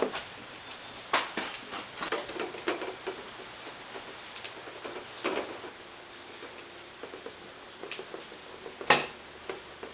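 Scattered light clinks and knocks of dishes and utensils being handled, with a sharper knock about nine seconds in.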